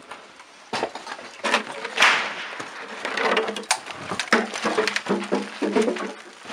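Close rustling and knocking of clothing and gear rubbing against the recording device, with a string of irregular sharp cracks and knocks.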